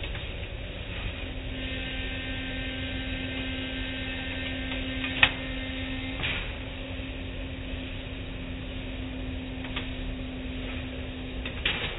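Automatic car wash machinery heard from inside the car: a steady motor hum over a low rumble, with one sharp knock about five seconds in and a few lighter knocks later.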